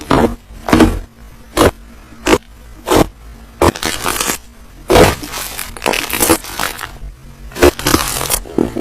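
Slime being pressed and squished by hand, giving a string of sharp crackling pops about one a second, with longer crackly squelches in the middle.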